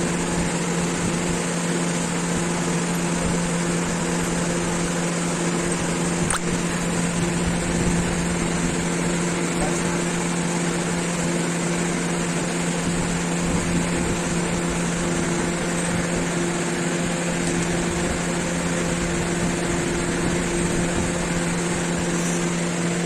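A steady machine hum with an even rushing noise, like a fan or air conditioner running.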